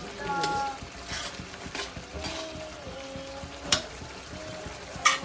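Food sizzling as it fries in a pan and is stirred, with sharp knocks of a spoon against the pan, one a little over halfway through and one near the end.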